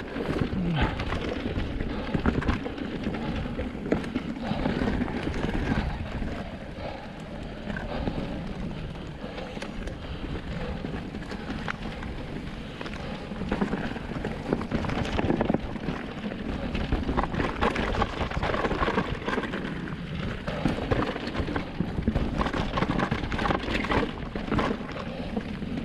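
Wind buffeting the action camera's microphone over the riding noise of an Orbea Rise electric mountain bike on a rough trail: tyres rolling over the ground, with frequent short knocks and rattles from the bike.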